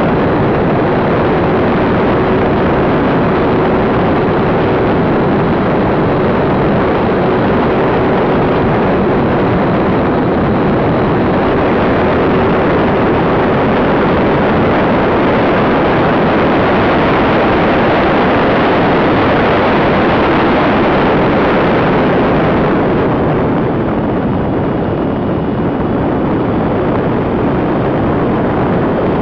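Airflow rushing over the tail-mounted camera of a radio-control model plane in flight, a loud steady rush, with the plane's motor as a steady tone under it that fades out over the first ten seconds or so.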